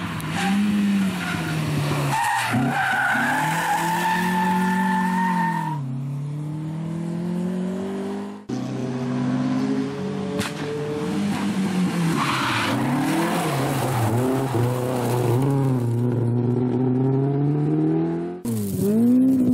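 Historic rally cars, an Opel Kadett among them, driven flat out past on a tarmac stage in separate passes. The engines rev high and drop again and again through gear changes and lifts, with tyre squeal.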